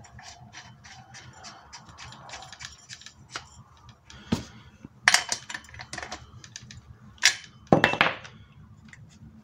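Scattered clicks, knocks and a few short scraping strokes of hands working on an old Husqvarna 444 SE chainsaw as it is primed with a little petrol for a starting attempt; no engine running.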